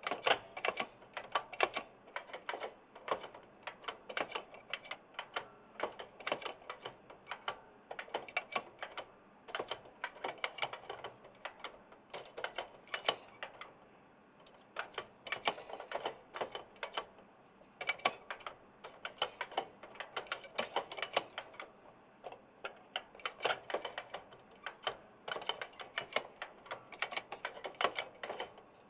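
Fast typing on an oversized mechanical keyboard with Kailh blue clicky switches and palm-sized keycaps: a dense run of sharp clicks, with the key springs ringing audibly. The typing eases off briefly twice.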